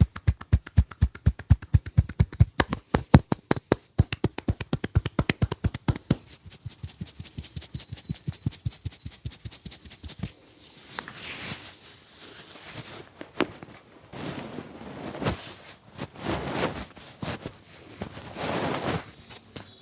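Hands rhythmically slapping and tapping on the head and back during a barber's massage, about five sharp strikes a second. About six seconds in the strikes turn lighter and faster. From about ten seconds in they give way to rough bursts of rubbing with a few single clicks.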